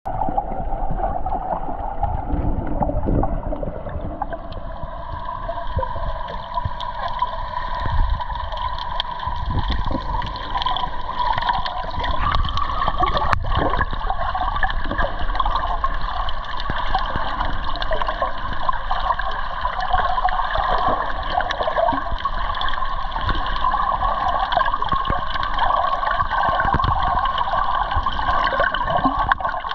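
Underwater water noise: a steady, muffled gurgling and crackling of moving water, with one sharp click about halfway through.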